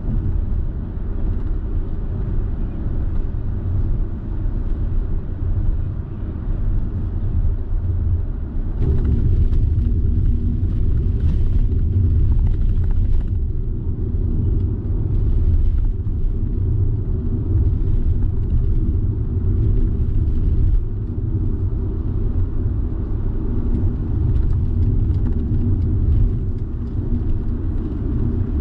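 A car being driven: a steady low rumble of engine and tyres on the road, a little louder from about nine seconds in.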